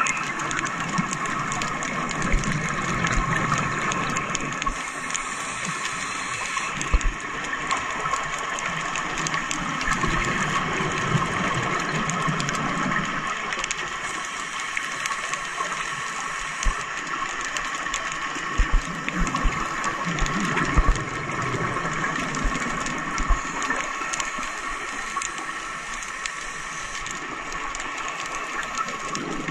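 Underwater ambience: a steady mechanical whine over a hiss, with scattered short low thumps.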